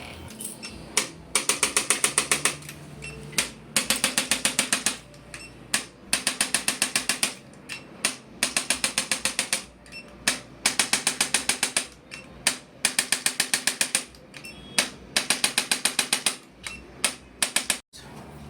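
Handheld percussion massager ('hammer') tapping rapidly on the lower-back paraspinal muscles to release them. It comes in about eight short runs of roughly ten strikes a second, each run about a second long, with brief pauses between.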